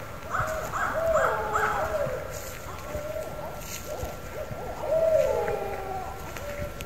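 Several wild animals calling over one another in a night-time phone recording: short, arching, hoot-like notes and longer wavering calls that fall in pitch. The calls are loudest about a second in and again about five seconds in, over a faint steady high tone.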